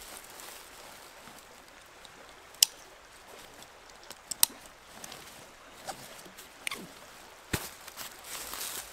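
Backpack strap buckles and webbing being worked by hand: a handful of sharp plastic clicks, the loudest about two and a half seconds in and a quick pair a couple of seconds later. Near the end there is rustling of fabric as a rolled sleeping pad is lifted.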